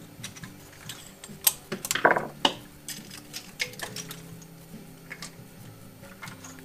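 Light clicks, taps and clinks of plastic connectors and metal parts being handled as the wiring harness is stripped off a Subaru FA20 engine, with a short, louder falling sound about two seconds in. Faint background music underneath.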